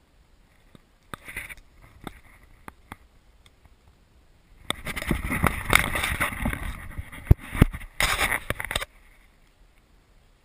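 Camera handling noise: clothing and pack gear rubbing and knocking against the camera's microphone as it is moved. A few sharp clicks in the first three seconds, then about four seconds of loud, dense scraping and knocking that stops suddenly.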